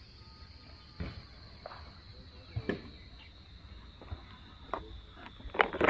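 Steady high-pitched insect chorus, with scattered close clicks and knocks of handling and movement, a louder cluster of them near the end.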